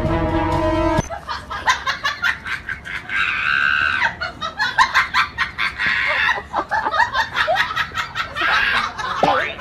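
People laughing in short repeated bursts, with some high squeals, after a short music sting cuts off about a second in.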